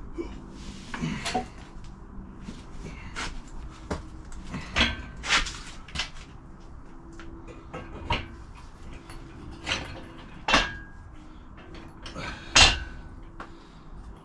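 Irregular hard knocks and clunks of heavy metal parts being handled: an engine and its engine stand being moved and fitted by hand. The loudest knock comes near the end.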